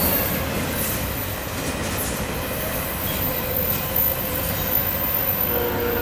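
Freight cars of an autorack/intermodal train rolling past on steel rails: steady wheel-on-rail noise with a few light knocks about four seconds in.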